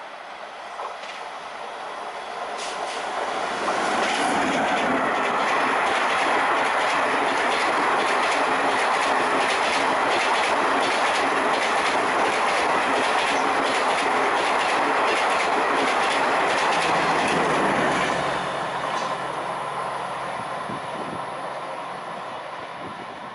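Indian Railways express passenger train passing close at speed: the rush of the coaches and a rapid clickety-clack of wheels over rail joints swell over the first few seconds, stay loud for about fourteen seconds, then fade away. Near the end a lower steady hum remains.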